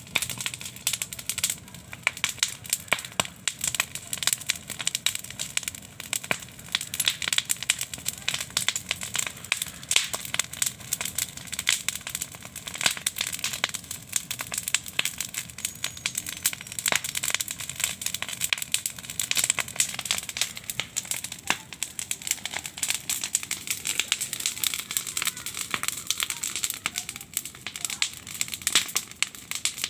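Wood fire of burning branches crackling, with many sharp, irregular snaps a second.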